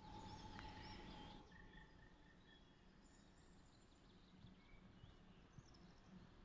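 Near silence: faint outdoor ambience with a few scattered small bird chirps and whistles.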